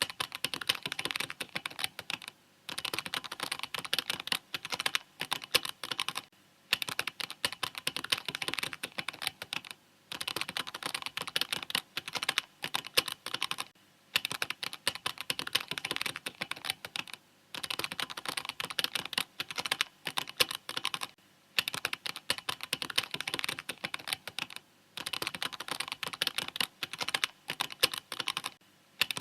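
Mechanical keyboard typing: rapid, continuous keystroke clicks in runs of a few seconds, broken by brief pauses roughly every three to four seconds.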